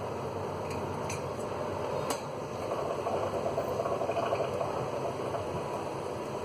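Two light clicks, then pasta cooking water pouring and splashing from a tilted steel pot for a few seconds, over a steady hiss.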